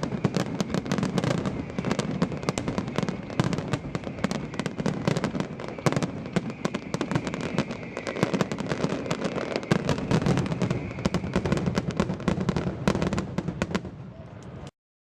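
Fireworks finale: a dense, continuous barrage of cracks and bangs from many shells going off in quick succession. The sound cuts off suddenly near the end.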